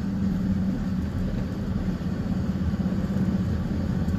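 Steady low rumble of a car, its engine and road noise running on evenly with a constant low hum.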